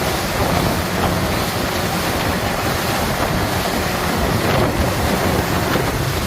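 Wind buffeting the microphone over rushing sea water, with a steady low rumble beneath, as on a boat under way at sea.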